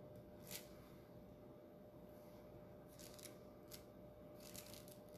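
Near silence: room tone with a faint steady hum and a few soft, brief scratchy sounds.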